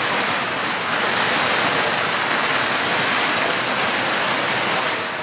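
Strings of firecrackers going off continuously, their many reports blending into a loud, steady, dense crackling.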